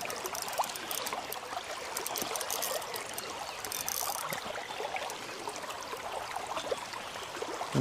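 River water running and trickling in a steady flow, with faint scattered clicks over it.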